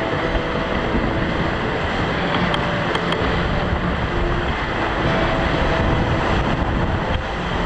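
Water rushing along the hull of a Mini 6.50 sailboat under way, with wind buffeting the microphone.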